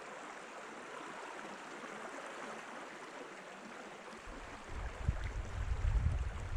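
Small river running with a steady rushing sound. About four seconds in, gusty wind starts buffeting the microphone with an uneven low rumble.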